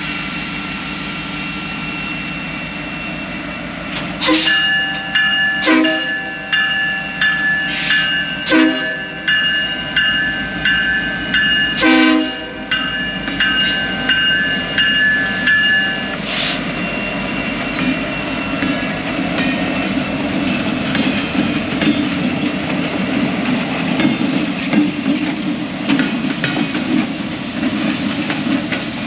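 A diesel freight train passing slowly. Its multi-chime air horn sounds a chord for about twelve seconds, starting about four seconds in, with several sharp knocks among it. After the horn stops, the locomotive's low engine rumble and the clicking of wheels over rail joints carry on.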